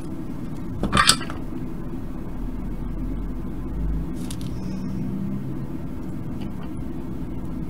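A steady low background hum, with one brief sharp scrape or click about a second in.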